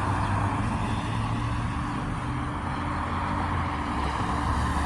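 Steady low rumble of a motor vehicle engine running, with a constant hum and no change through the stretch.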